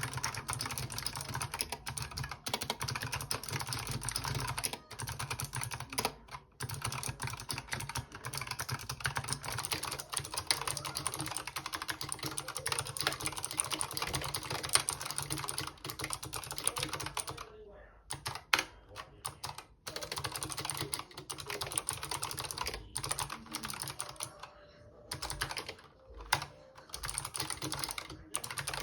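Fast typing on a Razer Huntsman Mini 60% mechanical keyboard with optical switches: a dense, rapid run of key clicks, easing off briefly twice in the later part.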